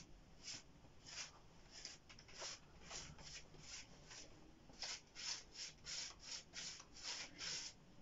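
Paintbrush strokes brushing white paint onto a door frame: faint repeated bristle swishes, slow at first and quicker and louder from about five seconds in.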